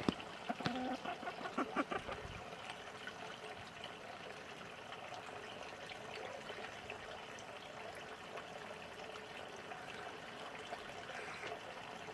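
Steady trickling, running-water noise, with a cluster of short clicks and taps in the first two seconds.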